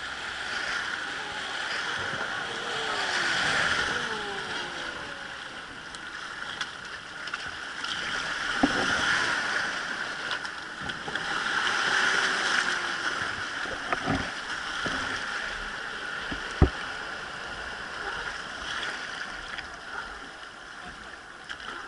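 Rushing river water streaming past the side of a wooden rowed boat in rapids, swelling and easing several times as the oar dips and splashes. A few sharp knocks stand out, the loudest about three-quarters of the way through.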